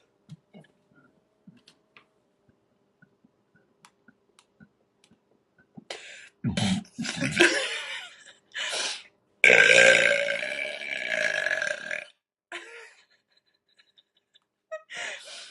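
A woman burping: a few short burps starting about six seconds in, then one long, loud burp lasting about two and a half seconds.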